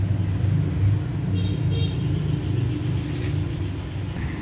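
Steady low mechanical rumble, with two faint short high squeaks about a second and a half in.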